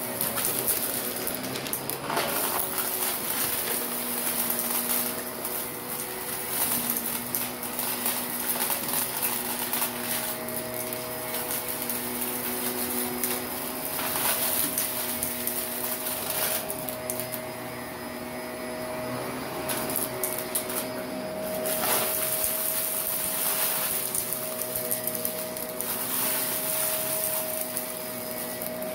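Shark Navigator upright vacuum running on carpet, its motor whining at a steady pitch under a high rushing hiss. Irregular crunching and rattling come through as the brush roll sucks up fine gritty dirt and small debris.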